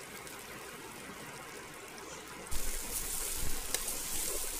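Egg omelette frying in hot ghee in a karahi: a low sizzle, then about halfway through a loud sizzle as a slotted spatula breaks it up and stirs it, with a few scrapes of the spatula on the pan.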